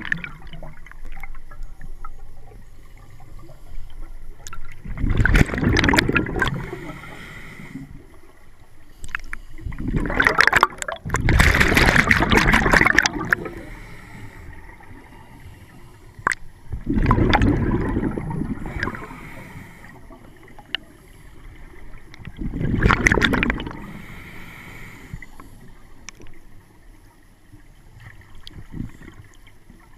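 Scuba divers' exhaled bubbles gurgling out of a regulator underwater, in four long bursts about every five to six seconds, with quieter stretches between breaths.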